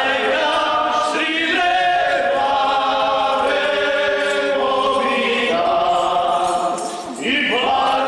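A group of men singing a folk song together in chorus, sung phrases held out. There is a short break about seven seconds in before the next phrase starts.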